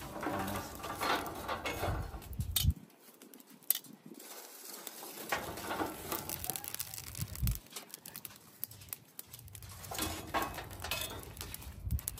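Metal tongs raking and turning charcoal briquettes in a metal barbecue firebox: scattered clinks, scrapes and knocks of the coals against each other and the grate.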